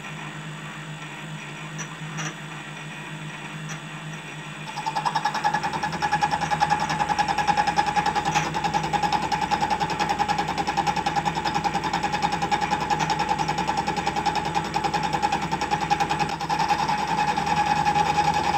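WM210V lathe spindle turning at about 150 rpm on power feed, with a steady hum. About five seconds in, the boring tool starts cutting: an interrupted cut, with a dense rapid clatter and a steady ringing tone that carry on over the machine's hum.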